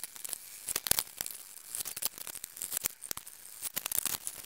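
Plastic quart bottles of transmission fluid being handled and uncapped: an irregular run of sharp crackles and clicks from the plastic bottles, caps and seals.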